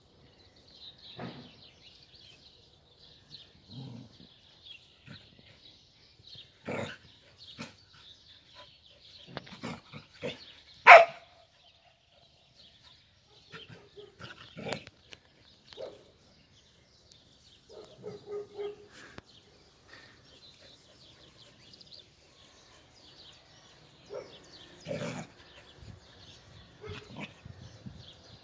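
A dog making short sounds now and then, irregularly spaced, the loudest and sharpest about eleven seconds in.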